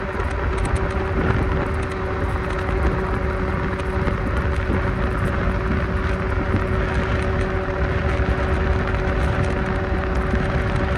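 A vehicle running steadily: an even rumble under a constant hum of several held tones, with no change in speed or pitch.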